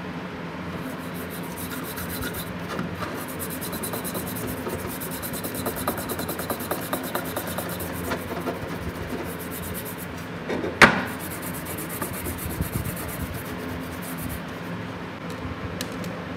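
A toothbrush scrubbing a powder-coated rusty steel pipe wrench on a wooden table, in fast, rough, scratchy strokes. One sharp knock, the loudest sound, about eleven seconds in.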